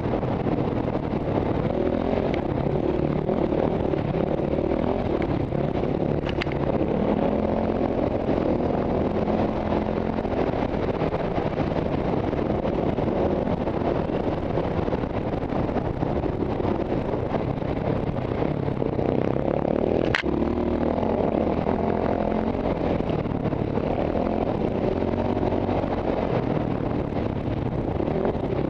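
KTM single-cylinder four-stroke enduro motorcycle engine heard from the rider's helmet, revving up and down while riding a sandy dirt trail. A sharp click cuts through about twenty seconds in.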